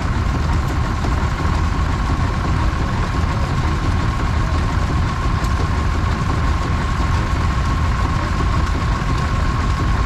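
Vintage farm tractor engines running steadily close by, a constant low rumble with a thin steady whine over it.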